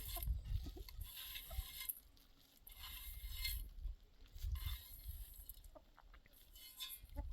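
Chickens clucking at intervals, with repeated short hissing or scraping noises and a low rumble, likely wind on the microphone.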